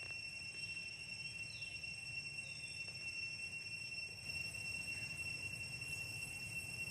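Steady high-pitched insect drone in several unbroken tones, with a few faint short falling squeaks.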